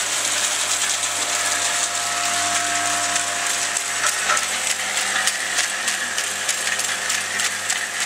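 XL-10B rotary vial filling, stoppering and capping machine running: a steady mechanical hum and clatter, with rapid clicking that grows denser about halfway through.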